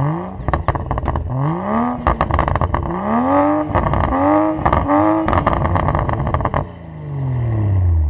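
Car engine revving hard several times, its pitch climbing and dropping again and again, with sharp clicks mixed in. Near the end it winds down in one long falling note and cuts off suddenly.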